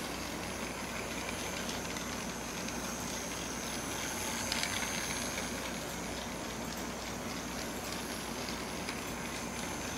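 Battery-powered toy Taiwan High Speed Rail train running laps on plastic track: a steady whir of its small motor and wheels with a faint high whine, a little louder about four and a half seconds in as it passes close by.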